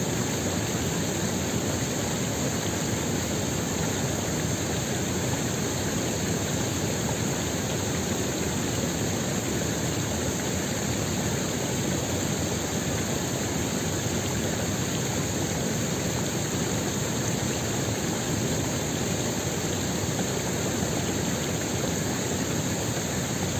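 Steady rush of a mountain stream running over rocks, an even noise with nothing else standing out.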